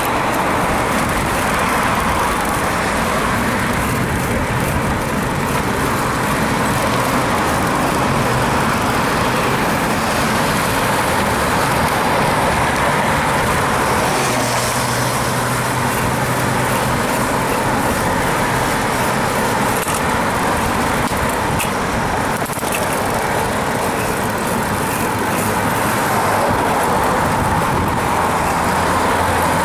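Steady road traffic: motor vehicles passing close by, a continuous hiss of tyres on pavement with a low engine hum.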